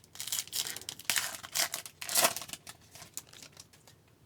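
Hockey card pack wrapper crinkling and tearing as it is opened, a run of crackles with the loudest rip a little past two seconds in.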